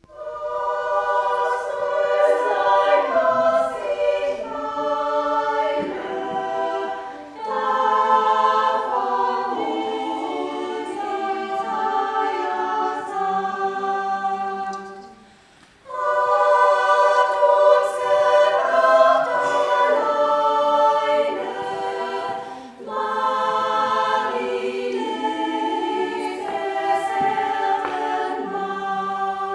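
Women's choir singing a Christmas carol in phrases, with a brief pause about halfway through.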